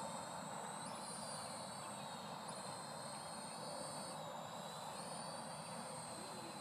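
Parrot AR.Drone 2.0 quadcopter's motors and propellers whining high overhead, the pitch stepping up about a second in, dipping around four seconds and rising again near five seconds as the drone manoeuvres.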